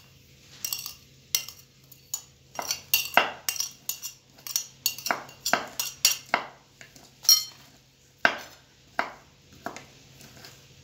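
A metal spoon scraping and tapping against glass bowls in a quick run of clinks as chopped green onion and herbs are scooped from one bowl into another. The taps thin out near the end.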